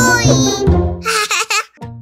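Children's intro jingle with high, wavering, cartoon-like voice sounds. It breaks off about a second and a half in, and a soft electric piano note begins near the end.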